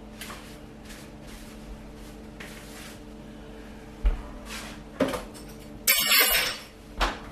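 Kitchen handling sounds over a steady low hum: a thump about four seconds in, a knock a second later, then a brief loud clatter of cookware or cupboard.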